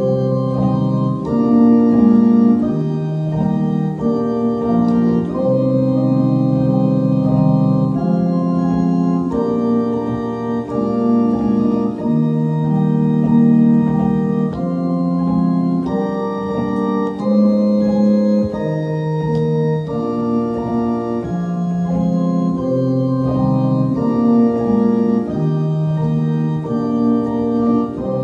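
Organ playing a slow piece in sustained chords that change about every second, with no singing.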